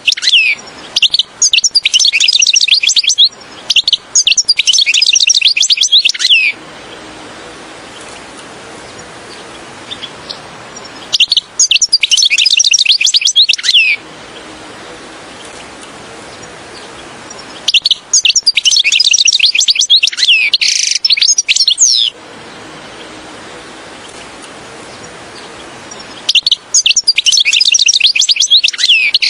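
European goldfinch singing in four bursts of rapid, high twittering, each lasting a few seconds. The bursts are separated by pauses of steady background hiss.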